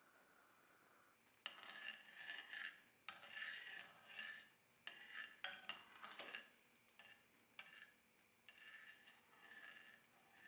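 A metal spoon stirring and scraping in cookware, with a few sharp clinks against the side. It starts about a second and a half in, goes in short runs of about a second each, and grows quieter near the end.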